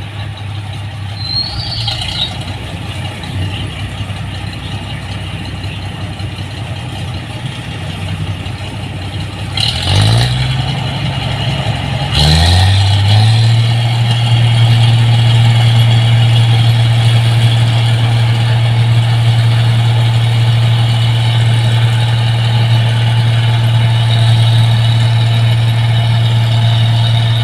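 Combine harvester's diesel engine running steadily. About ten seconds in it revs up twice, each with a brief clatter, and then holds at a louder, higher speed.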